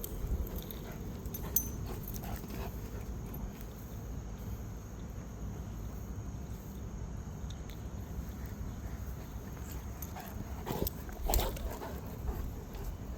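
An 11-month-old Cane Corso puppy making dog sounds over a steady low rumble, with a short pitched vocal sound about eleven seconds in.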